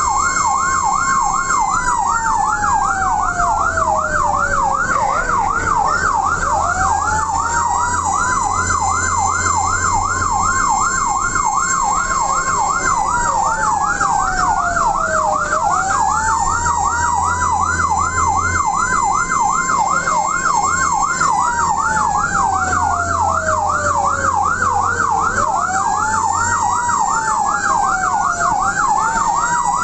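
Two emergency sirens of fire-rescue vehicles running at once: a rapid yelp warbling up and down a few times a second, and a slower wail that holds, glides down, then sweeps back up several times. A vehicle engine's low drone runs underneath.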